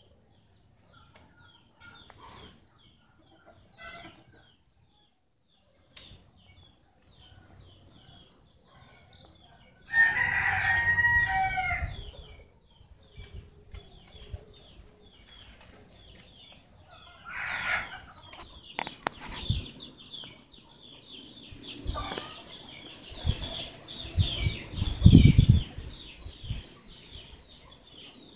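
Small birds chirping over and over, with one loud drawn-out bird call lasting about two seconds around ten seconds in and a shorter call a few seconds later. A low rumble near the end is the loudest sound.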